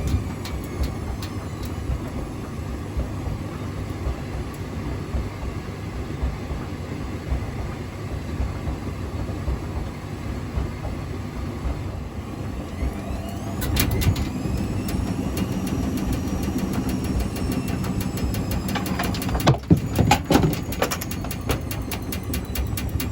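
Hotpoint Extra WMXTF942 washing machine on a rinse spin with a badly unbalanced load, its drum knocking in a regular beat. About two-thirds through, the motor whine climbs as the drum speeds up. A few loud bangs follow near the end, the loudest part.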